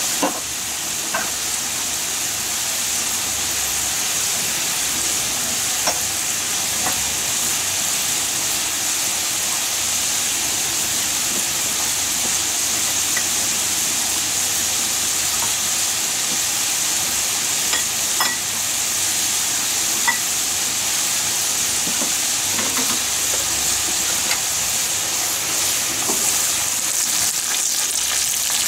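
Potato strips deep-frying in hot oil in a pan: a steady sizzle with a few small pops scattered through.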